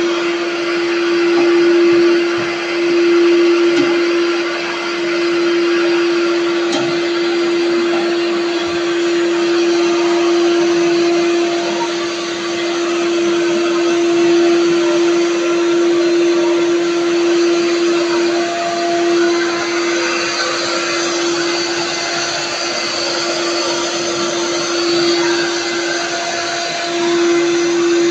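Portable carpet extractor's vacuum motor running steadily, with a strong constant hum under a loud rushing suction noise. The sound wavers slightly as the floor wand is worked back and forth over the carpet.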